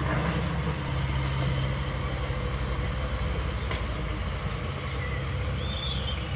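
Diesel engine of a CAT 307E mini excavator running steadily, a low drone. One sharp click about four seconds in.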